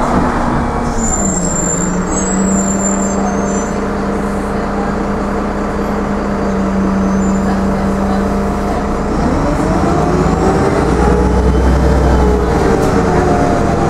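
Karosa B961 articulated city bus's diesel engine and road rumble, heard from inside the passenger cabin while driving. The engine note drops about a second in, holds low and steady, then climbs about nine seconds in as the bus picks up speed.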